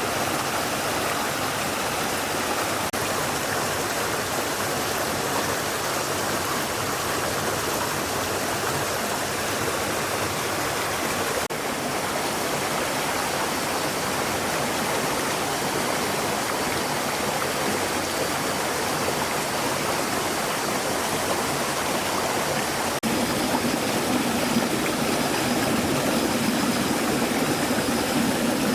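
A stream of water flowing steadily. The sound changes abruptly a few times and becomes slightly louder and fuller in the last few seconds.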